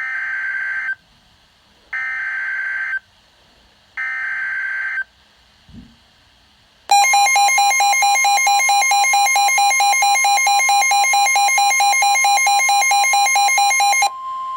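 Emergency Alert System header: three one-second bursts of shrill digital data tones, a second apart. About two seconds later a loud alert tone begins, pulsing rapidly over a steady high tone, and cuts off after about seven seconds, leaving the steady tone sounding more faintly.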